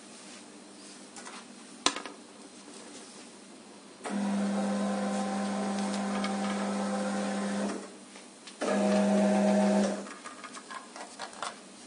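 QMAX NF-1 needle detector's conveyor belt motor running with a steady hum, starting about four seconds in and stopping shortly before eight seconds, then a second, louder run of about a second. A single sharp click about two seconds in.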